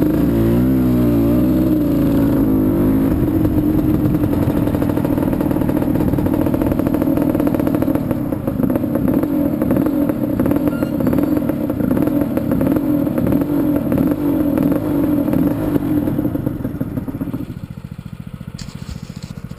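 ATV engine running at low speed, its pitch rising and falling over the first few seconds, then holding steady before dropping to a quieter idle near the end.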